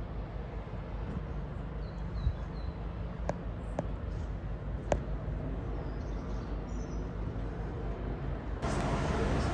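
Outdoor ambience: a steady low rumble with faint bird chirps twice and a few sharp clicks in the middle.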